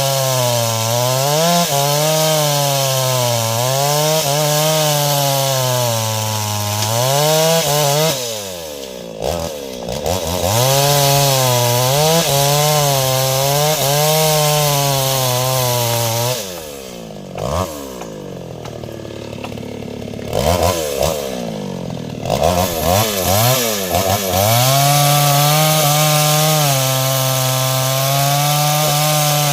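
Stihl MS 381 two-stroke chainsaw running at high revs and cutting into wood, its pitch wavering as the chain bites. The engine drops to lower revs briefly about eight seconds in and again for several seconds around the middle, then goes back up to full speed.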